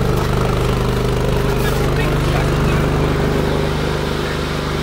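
Heavy wheeled armoured vehicle's engine idling steadily with a low, even drone.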